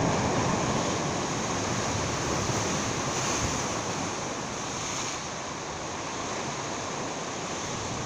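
Sea surf washing against jetty rocks, with wind on the microphone: a steady rush that eases a little after the middle.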